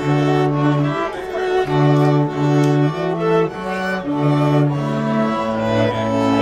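String quartet of two violins, viola and cello playing live: bowed notes held over a cello line that steps to a new pitch every half second to a second.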